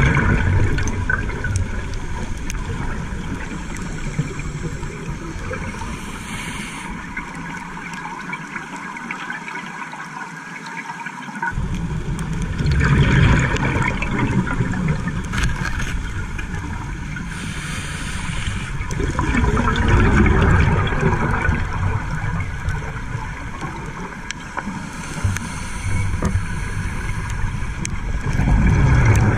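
Scuba diver breathing through a regulator underwater, heard through the camera housing: a short hiss on each inhale, then a loud rush of exhaled bubbles, about every seven seconds, over a steady underwater wash.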